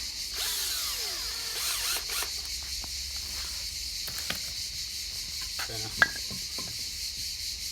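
Power drill driving a screw into a length of 2x2 timber, its motor whine falling in pitch for about a second and a half near the start. A sharp click about six seconds in.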